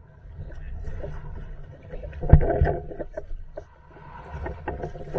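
Small sailboat under way in choppy water: wind buffeting the action camera's microphone as a low rumble, with water splashing and slapping against the hull. Two sharp thumps a little over two seconds in.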